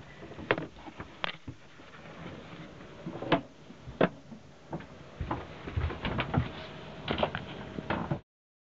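Irregular knocks and clicks of someone moving through a small wooden sailboat cabin with a handheld camera, with a few louder knocks spread through; the sound cuts off abruptly near the end.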